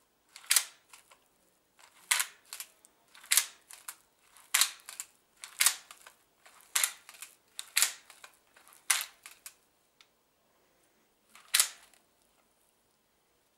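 3D-printed plastic hidden-blade mechanism snapping as the blade is shot out and pulled back: nine sharp clicks about once a second, each followed by a few lighter rattling clicks, with a longer pause before the last one near the end.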